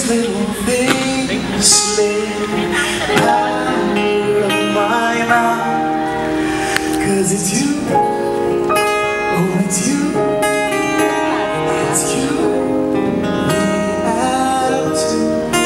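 A man singing live to acoustic guitar accompaniment.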